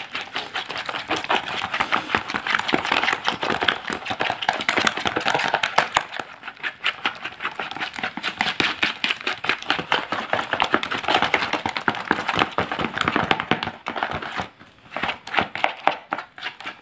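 A plastic spoon stirring thick, wet bait batter in a plastic basin: quick squelching strokes and clicks, with a short pause near the end.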